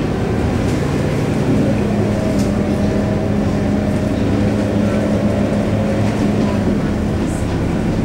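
Scania K230UB city bus heard from inside the passenger cabin while under way: a steady drone from its DC9 diesel engine and drivetrain, with road and tyre noise.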